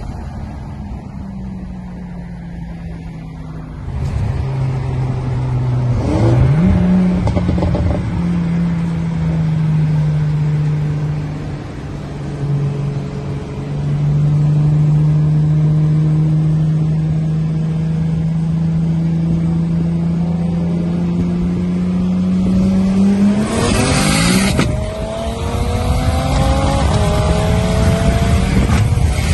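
Race car engine running hard on a circuit. Its pitch holds steady for long stretches, jumps up about six seconds in, and climbs again near the end as it accelerates. Short rushes of noise come about six seconds in and again near the end.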